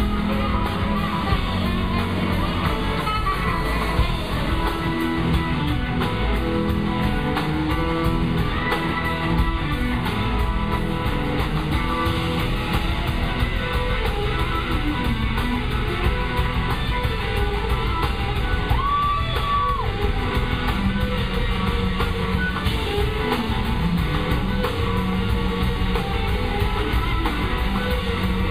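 Live rock band playing, with electric guitar leading over the drums and the rest of the band, recorded from the audience.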